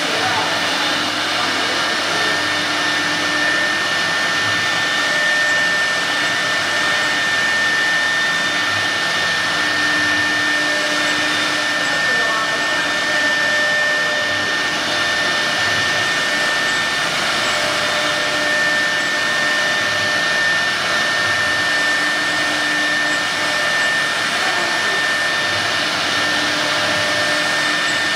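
CNC wood router's 6 kW HSD spindle running at speed: a steady high whine over a constant rush of noise, with a lower hum that comes and goes every few seconds.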